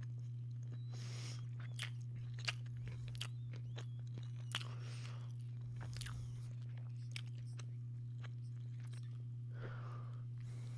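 Someone chewing a sandwich close to the microphone: scattered small clicks and crunches at irregular intervals, over a steady low hum.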